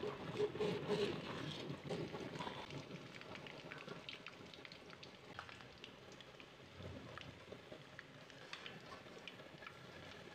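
Eggs frying in hot oil in a wok: a steady sizzle dotted with small crackling pops. It is loudest in the first couple of seconds and settles lower after.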